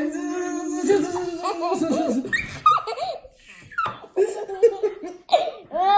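A young child laughing and giggling in play, with a long held vocal note at the start and a brief pause a little after the middle.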